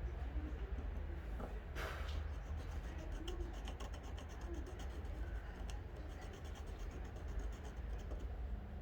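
Small parts being handled: a brief scrape about two seconds in, then a run of faint light clicks, over a steady low rumble.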